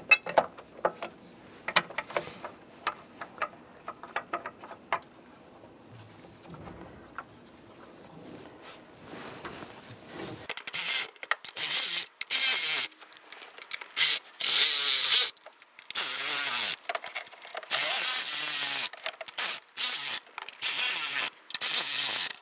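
Light clicks and knocks of bolts and parts being handled, then a cordless electric ratchet running the upper intake plenum bolts down in about eight short runs through the second half, its motor whirring up and down in pitch with each run.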